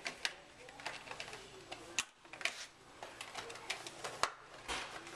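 Irregular sharp clicks and light rattling of a black plastic packaging tray being handled as a mini RC helicopter is freed from its strap and lifted out.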